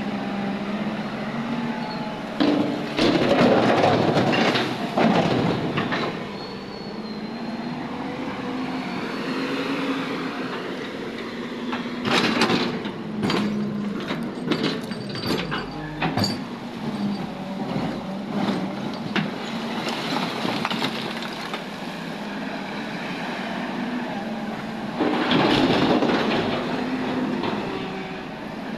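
Diesel engine of a JCB JS200LC tracked excavator running steadily close by. Over it come loud bouts of clanking and scraping from the machine working rubble: one a few seconds in, a run of sharp clanks around the middle, and another near the end.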